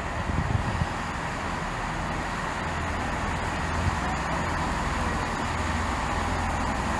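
Steady running noise of a train, with a few low thumps in the first second and another about four seconds in.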